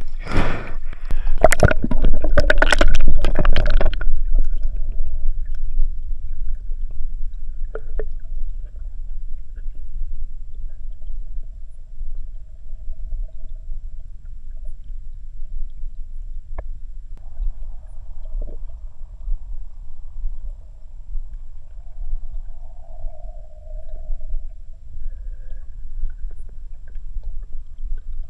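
Water splashing at the surface for the first few seconds, then the muffled, steady low rumble of being underwater in a river, heard through the camera's housing.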